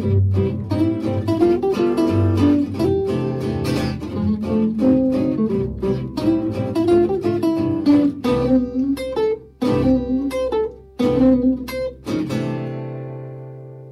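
Instrumental background music of quickly plucked string notes, with a couple of brief pauses, ending on a chord about twelve seconds in that rings out and fades away.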